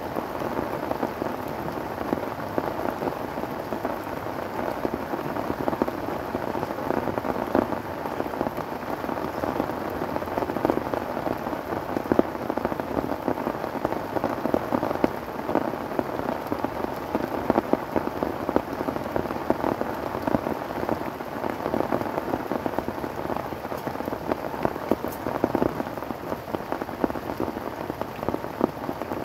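Heavy tropical rain falling steadily on a tarp shelter, a tent and the surrounding foliage: a dense, even hiss of many drops without a break.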